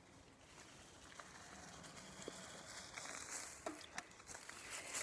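Mountain bike tyres rolling over dry leaves and twigs on a dirt trail, faint and growing louder as the bike comes near, with several sharp clicks and knocks in the last second and a half.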